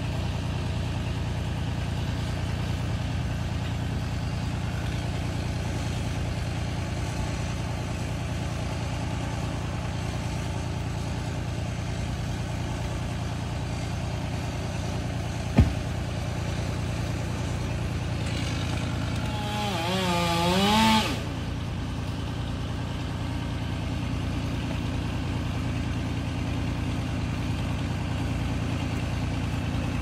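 A steady engine idling, with one sharp knock about halfway through. Near two-thirds in, a wavering engine-like whine rises for about two seconds and then cuts off suddenly.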